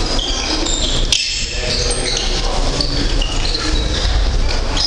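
Hall full of people training in pairs: overlapping voices and shuffling feet in a large, echoing gym, with a sharp knock about a second in.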